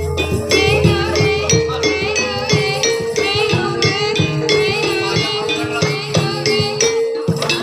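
Live gamelan-style ebeg accompaniment: a repeating melody of struck metal notes stepping between a few pitches, dense drum and rattle strokes, and a high wavering melodic line on top.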